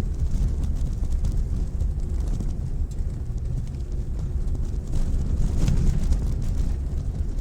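Mitsubishi Pajero Mini kei 4x4 driving along an unpaved forest road: a steady low rumble of engine and tyres.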